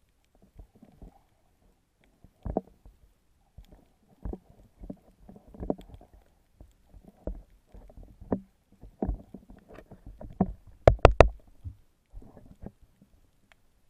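Muffled underwater sloshing and irregular thumps of swimming movement, heard through an action camera's waterproof housing, with a quick run of three sharp knocks about eleven seconds in.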